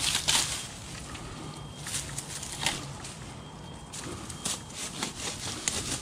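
Leafy branches rustling and swishing as they are grabbed and pushed around by hand up in a tree, with a few sharp crackles at irregular moments.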